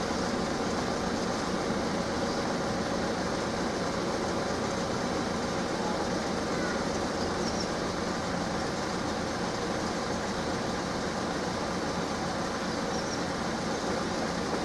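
Steady street traffic noise: cars idling, queued behind closed level-crossing barriers, with a constant low hum and no distinct events.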